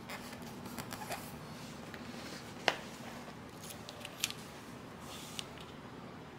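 Self-adhesive vinyl sheet being handled and pressed down around a board's corner: soft rustling and crinkling with a few sharp clicks, the loudest a little under three seconds in. Small snips begin working at the vinyl's corner near the end.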